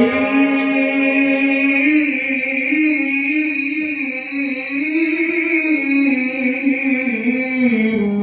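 A male Qur'an reciter holding one long melodic phrase in the ornamented tilawah style, unaccompanied, his pitch rising and falling slowly; the phrase ends just before the end.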